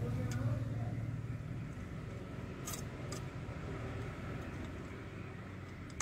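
Steady low hum of a car heard inside its cabin, stronger for the first second or so and then a little weaker, with a few faint light clicks.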